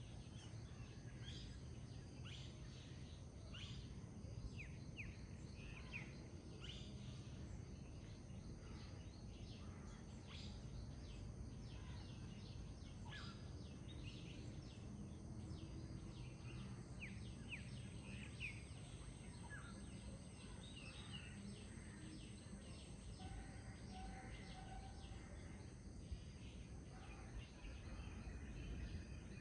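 Many short bird chirps and song phrases from several birds, over a steady low rushing sound of a gently flowing forest river.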